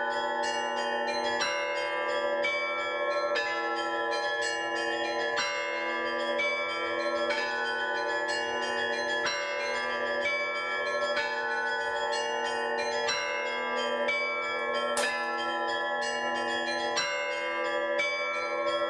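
Russian-style church bell ringing (zvon): several bells of different pitches struck over and over in a busy rhythmic peal, new strikes landing about every half second to second while the earlier tones ring on and overlap.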